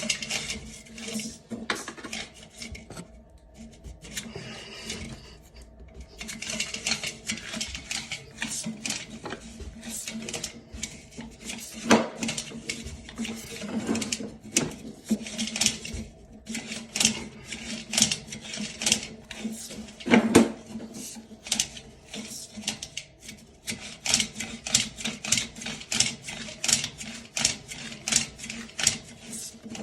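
Rapid mechanical clicking and knocking, irregular at first and settling into an even rapid rhythm in the last third, over a steady low hum.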